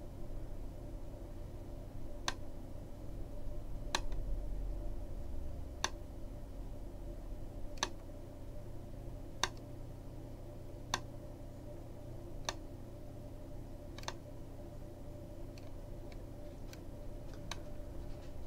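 Sharp single clicks from computer controls, about one every second and a half, while a spreadsheet is scrolled upward. Near the end come several quicker, fainter clicks. A steady low hum runs underneath.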